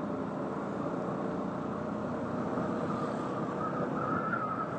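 Yamaha R15 S single-cylinder motorcycle riding at a steady cruise, its engine running under a steady rush of wind and road noise. A thin steady whine joins in a little past halfway.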